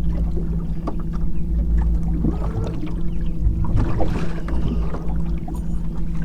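Boat motor running with a steady low hum, with light knocks and clicks scattered through it.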